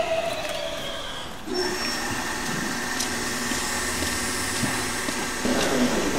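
Hokuetsu Express HK100 diesel railcar standing at the platform: a falling whine from the stopping train fades out in the first second or so, then the idling diesel engine and onboard equipment give a steady hum.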